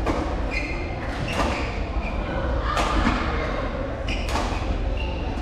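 Badminton rally: four sharp racket strikes on the shuttlecock, about one every second and a half, with a few short squeaks of shoes on the court floor in between.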